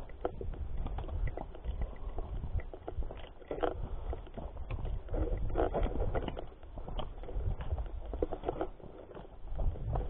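Footsteps of hikers walking on a dirt forest trail: an uneven run of crunches and knocks, over a low rumble on the microphone from the moving camera.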